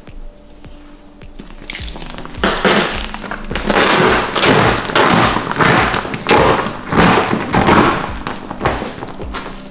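A sheet of clear paint protection film crackling and rustling as it is lifted and pulled back off a wet car panel. Loud crackles come about twice a second, starting a couple of seconds in and stopping just before the end.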